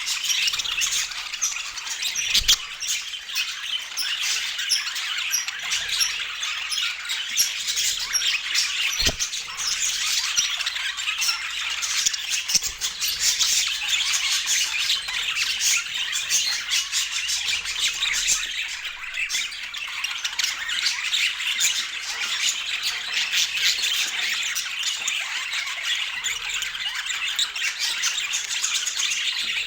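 A flock of small birds chattering continuously, a dense stream of overlapping squawks and chirps.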